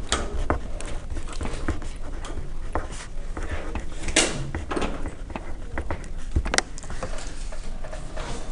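A pen writing on a sheet of paper close to the microphone: irregular scratches and light taps of the handwritten strokes, with two stronger strokes near the middle.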